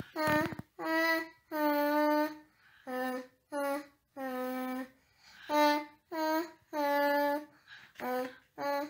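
A young girl singing a vocal warm-up exercise: about a dozen short, steady sung notes on a vowel, a little over one a second, with brief pauses for breath between them.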